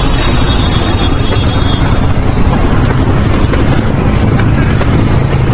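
Wind buffeting the microphone of a camera riding along on a mountain bike: a steady, loud rush, heaviest in the low end.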